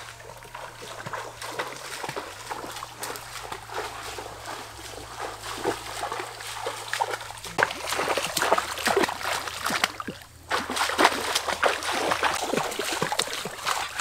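Bare feet splashing and sloshing through a shallow stream, in irregular splashes that start about halfway through.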